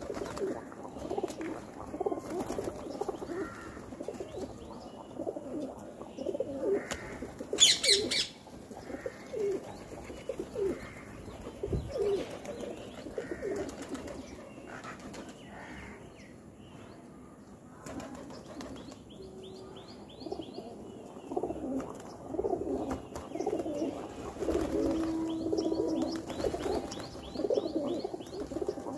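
Rock pigeons cooing over and over as they feed, with wingbeats flapping as birds land and jostle, loudest about eight seconds in. A small bird adds quick high chirps near twenty seconds and again near the end.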